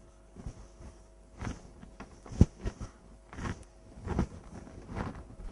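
Handheld whiteboard eraser wiping across a whiteboard in a series of irregular short strokes, with one sharp knock about two and a half seconds in.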